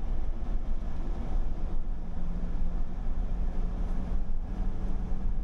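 Road and engine noise inside a truck's cab at highway speed: a steady, dense rumble, with a low steady hum setting in about two seconds in.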